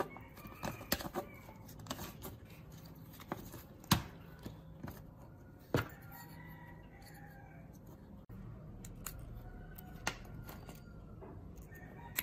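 Sharp plastic clicks and snaps as the shell of a small toy quadcopter drone is pried apart by fingers and a small screwdriver, scattered irregularly a second or two apart with the loudest about four and six seconds in.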